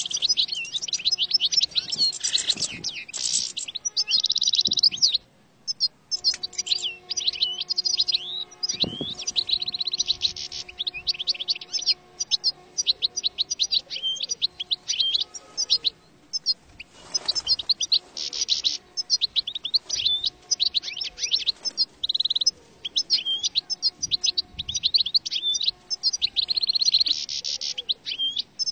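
European goldfinch song played as a trapping lure: a fast, continuous twittering of high chirps, buzzy notes and trills, broken by a few short pauses.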